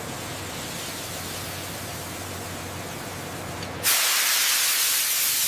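Hiss of pressure escaping at a fitting on a pressure-gauge manifold. It starts as a steady hiss, and about four seconds in it suddenly becomes much louder and sharper as the fitting is worked.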